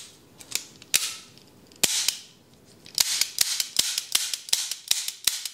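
Revolver's action clicking as it is worked by hand: a few single sharp metallic clicks, then from about three seconds in a quick run of clicks, several a second.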